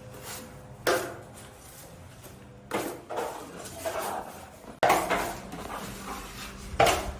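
Metal drywall knife clinking and scraping as joint compound is loaded and spread over mesh seam tape: four sharp strokes, roughly two seconds apart.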